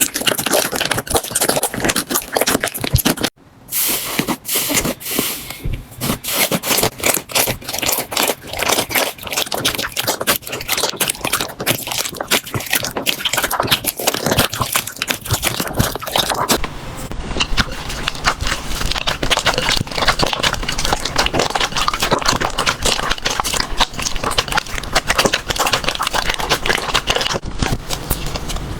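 Slime being squeezed, poked and stretched by hand, giving a dense run of fast crackling pops and sticky clicks. The sound breaks off briefly a few seconds in, and its texture changes about halfway through.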